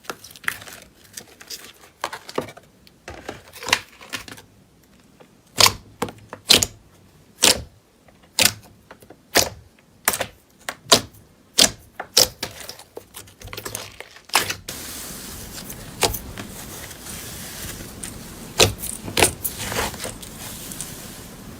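Slime being pressed and worked, giving a run of sharp pops and clicks at irregular intervals. A little over halfway through, a steady hiss comes in underneath.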